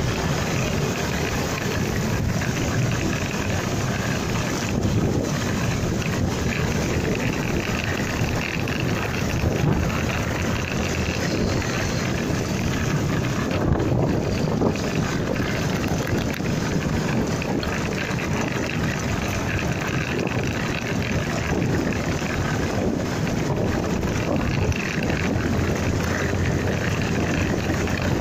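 A motorcycle riding along, its engine and road noise heard as a steady rush, with wind blowing on the phone's microphone.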